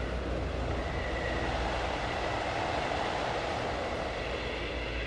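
Steady low rumbling noise with a faint high whine.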